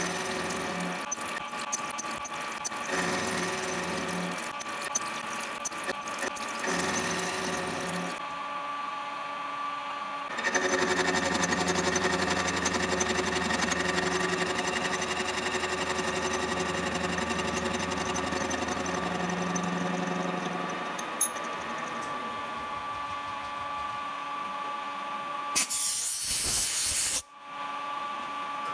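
Machine spindle running with its toothed cutter cutting the teeth of a small gear blank held in a dividing head, a steady whine with cutting noise under a flow of coolant, broken by a few sharp clicks and abrupt changes. A short, loud burst of hiss comes near the end.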